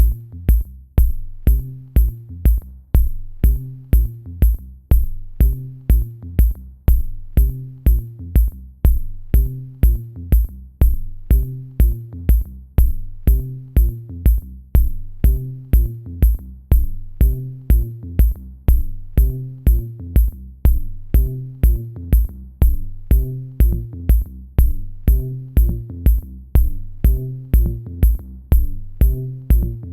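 Electronic background music with a steady beat of about two strokes a second over a repeating bass line.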